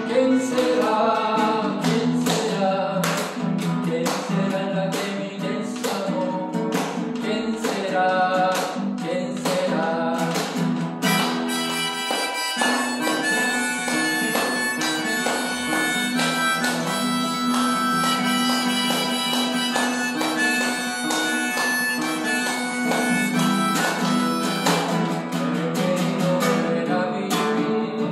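Classical guitar strummed with a harmonica playing the melody over it; the harmonica grows brighter and fuller about a third of the way in.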